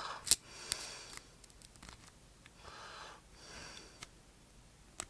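Faint metal clicks and ticks of a lock pick and tension wrench working the pins of a Master Lock padlock, with one sharper click about a third of a second in. Soft breathing through the nose runs between the clicks.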